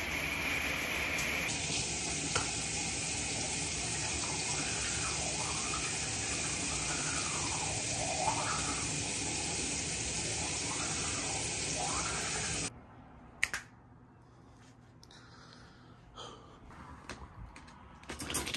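Bathroom sink faucet running steadily into the basin, cutting off suddenly about two-thirds of the way through. A few light clicks and knocks follow.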